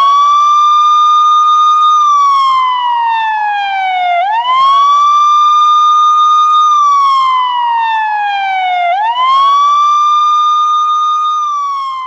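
Delhi Police electronic siren sounding loudly in a wail pattern. The tone sweeps quickly up, holds high for about two seconds, then slides slowly down, repeating about every four and a half seconds.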